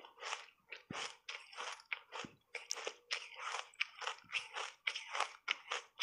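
Refrozen block ice coated in matcha powder being chewed, a fast run of crisp crunches several times a second.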